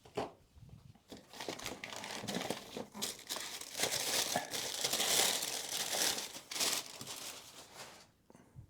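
Packaging being crumpled and unwrapped by hand: a dense crinkling that builds from about a second in, is loudest past the middle, and dies away near the end.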